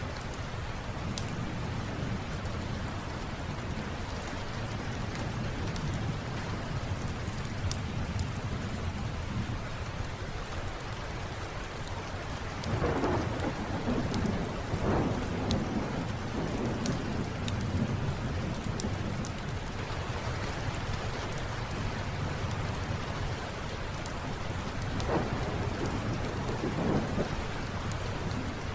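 Steady rain with low rolling thunder that swells louder about halfway through and again near the end, over the small sharp crackles and pops of a wood fire in a fireplace.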